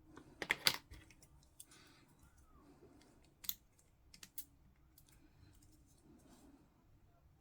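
Small sharp plastic clicks and taps as push-fit miniature parts are handled and pressed together: a quick cluster of clicks in the first second, then two single clicks a little under a second apart near the middle.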